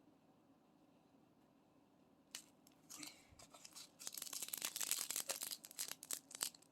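Small plastic bag of diamond-painting drills being handled: faint crinkling with the drills rattling, thickening into dense crackle about four seconds in after a near-silent start.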